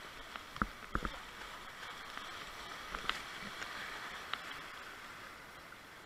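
Whitewater rapids rushing around a kayak, a steady roar of broken water that swells midway and eases near the end. A few sharp knocks break through, two close together about a second in and single ones around three and four seconds, typical of paddle strokes and water slapping the hull.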